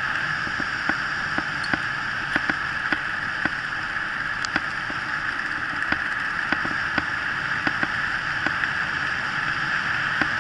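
Steady rush of wind and tyre noise from a mountain bike rolling fast on a paved road, with irregular sharp clicks and knocks about every half second from the bike rattling.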